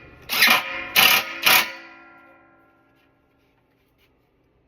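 A guitar strummed in a few quick strokes. The last chord rings out and fades away to silence.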